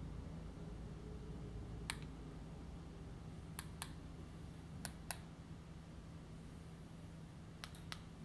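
Sharp clicks of the Kichler Cool Touch remote control's buttons being pressed, about eight in all: single ones and quick pairs and triples. Under them runs a faint low steady hum.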